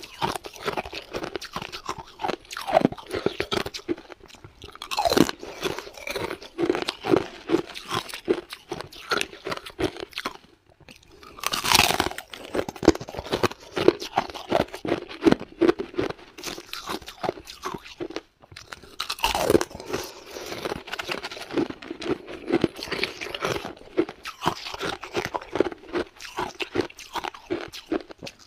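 A person biting and chewing clear ice chunks, crunching continuously. There are loud, sharp bites about five seconds in, near twelve seconds and again near nineteen seconds, with brief lulls between bites.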